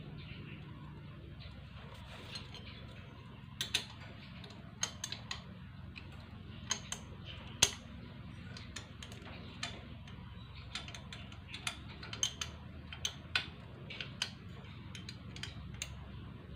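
Light metallic clicks and taps, scattered irregularly, from small metal parts being handled and fitted on a motorcycle engine's cylinder block during reassembly. A faint steady low hum runs underneath.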